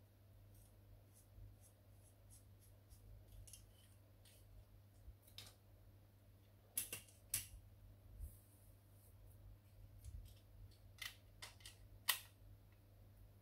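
Light clicks and taps of small laser-printer parts being handled, scattered and sparse, with a sharper pair about seven seconds in and another sharp click just after twelve seconds, over a low steady hum.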